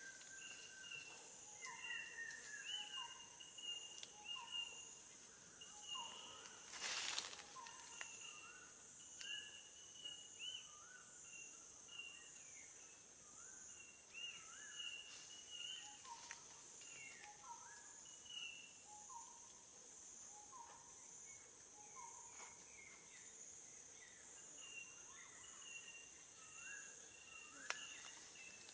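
Faint forest ambience: a steady high insect drone that pulses about once a second, with scattered short chirps over it and one brief rustle about seven seconds in.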